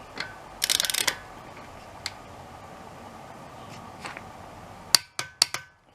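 Torque wrench on a wheel-lock nut and key, metal ratchet and tool clicks: a quick ratcheting rattle about a second in, scattered single clicks, then several sharp loud clicks near the end.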